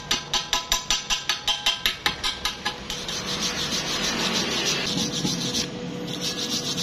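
Chipping hammer rapping slag off a fresh stick-weld fillet bead, about five quick ringing taps a second. About three seconds in it gives way to a steel wire brush scrubbing the bead, with a short break near the end.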